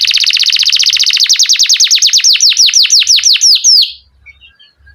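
Domestic canary singing: a loud, very fast trill of rapid repeated notes, changing about two seconds in to a slower run of falling whistled sweeps, then stopping near the end, with only faint chirps after.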